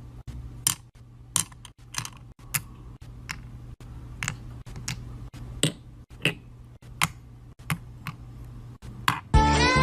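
Small sharp clicks of miniature plastic and acrylic pieces being set down and tapped with metal tweezers, coming irregularly about one or two a second over a faint low hum. Near the end, music starts abruptly.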